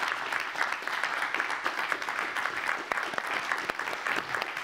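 Audience applauding steadily, many hands clapping at once, at the close of a talk.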